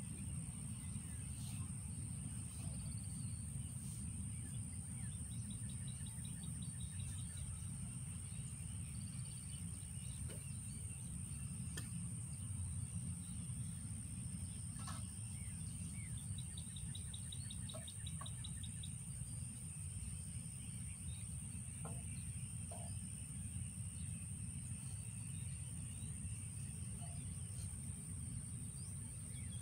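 Outdoor ambience: a steady low rumble of wind on the microphone under a constant high-pitched drone, with scattered short bird chirps and two rapid trills.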